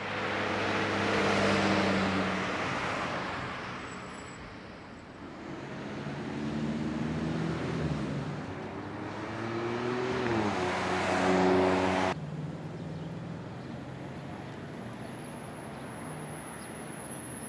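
Road traffic on a city street: a vehicle passes close with engine hum and tyre rush in the first few seconds, then a second vehicle's engine climbs in pitch as it accelerates past. About twelve seconds in the sound cuts abruptly to a quieter, steady traffic hum.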